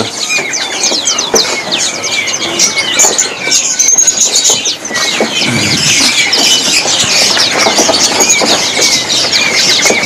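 Many caged birds chirping and calling over one another in a dense, unbroken chorus of quick, high chirps and short whistles.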